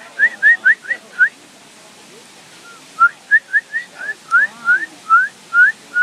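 A string of short, rising whistles, about four a second: a run of five in the first second, then after a two-second pause a longer run of about ten that slows slightly toward the end.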